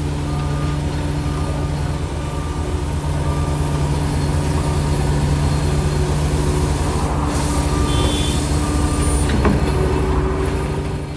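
Diesel engine of a CAT skid steer running steadily under load, with a reversing alarm beeping about once a second.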